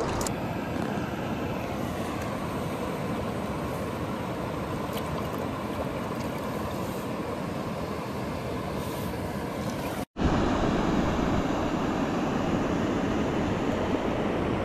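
Steady rush of a shallow stream's current over a rocky riffle, with low wind buffeting on the microphone. The sound drops out for a split second about ten seconds in, then the water comes back louder.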